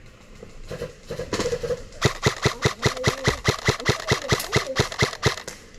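Airsoft gun firing a quick, even string of about twenty shots, about six a second, starting about two seconds in and lasting about three seconds.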